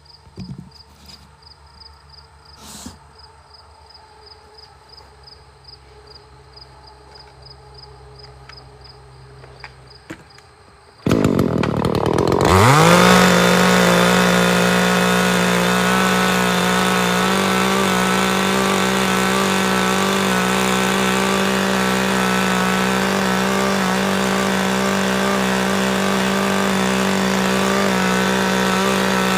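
Chainsaw starting about a third of the way in. Its pitch rises quickly as it revs up, then it runs at a steady high speed. Before it starts there are only a couple of faint knocks.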